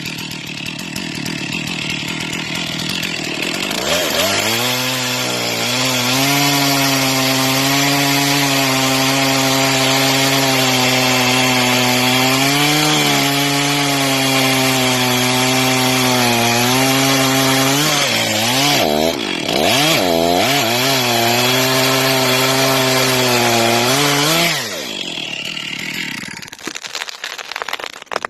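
Two-stroke chainsaw running at high revs. Its whine climbs over the first few seconds, holds steady, dips and picks up again a few times near the two-thirds mark, then falls away when the throttle is released near the end.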